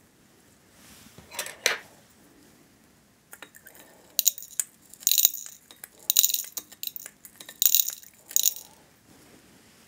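Small hard calcium carbonate chips tipped into a glass conical flask, clinking and rattling against the glass: a couple of clicks at first, then a series of clattering bursts.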